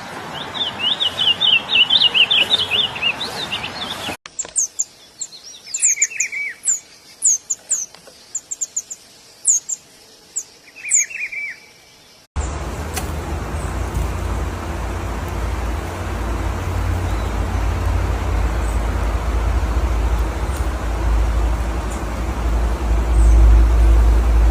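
Songbirds singing and calling: first a fast run of chirps, then after a cut high thin squeaks with a few lower warbled calls. About twelve seconds in the birds stop and a steady low rumble takes over.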